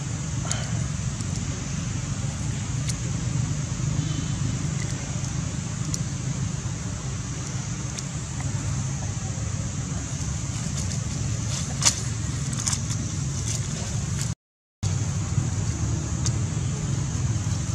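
Steady low outdoor background rumble with a few faint clicks about twelve seconds in. The sound cuts out completely for a moment near the end.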